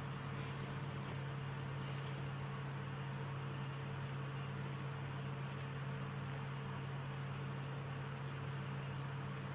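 Steady low hum with an even hiss underneath: background room noise with no other events.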